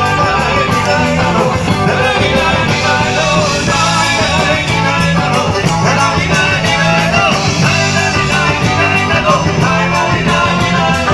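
Live band playing amplified through a PA: electric guitars and drums with a singer, a steady rock-style beat running throughout.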